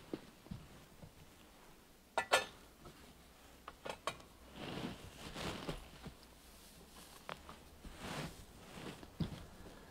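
Communion vessels being cleansed at the altar after communion: light clinks of chalice and paten and soft rustling. A sharp double clink with a brief ring about two seconds in is the loudest sound.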